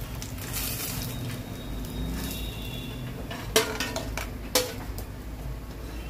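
Steel slotted spoon scraping and knocking against steel cookware as fried cutlets are lifted out of the oil, with two sharp metallic clinks about a second apart a little past halfway.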